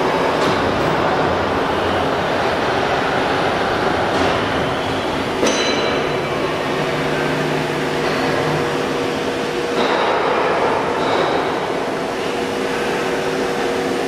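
Steady running noise of a ZK2130G/1300 CNC deep hole drilling machine, a constant mechanical hum with a few held tones under a broad rushing noise. A single sharp metallic click sounds about five and a half seconds in.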